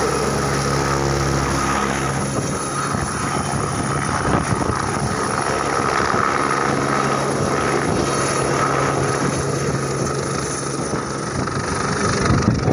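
Single-engine turbine helicopter at full power as it lifts off and flies away: a steady rotor beat with a steady high whine over it.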